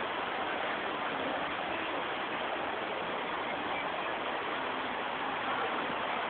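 Rain falling steadily, an even hiss with no single drops or knocks standing out.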